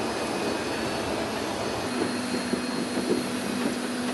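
Steady turbine noise from a jet airliner parked at the boarding stairs, with a low steady hum joining about halfway through.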